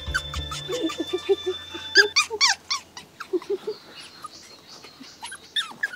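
Puppies yipping and whimpering as they play, a run of short, high squeaky calls that is loudest about two seconds in.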